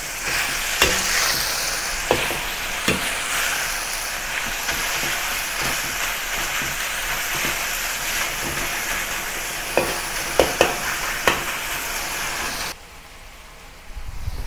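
Marinated beef strips sizzling in hot oil in a wok, with a metal wok spatula scraping and clinking against the wok as the beef is flipped and stirred; a few sharp clinks stand out, several of them close together around ten seconds in. The sizzle drops away suddenly near the end.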